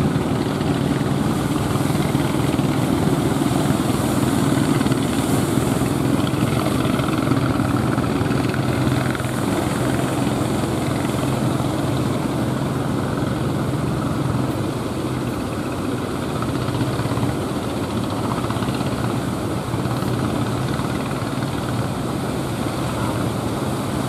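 Fishing boat engine running with a steady drone over the rush of breaking surf and wind; the drone weakens after the middle.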